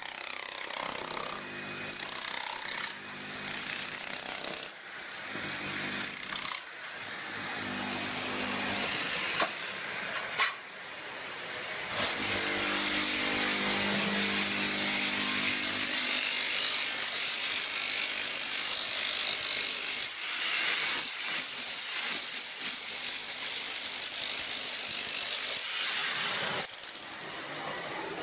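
Electric chipping hammer fitted with a vacuum dust shroud, chipping up floor tile at a turned-down hammer speed. The speed is lowered so that neighbouring loose tiles don't vibrate. The tool stops briefly now and then and runs louder and harsher from about 12 seconds in.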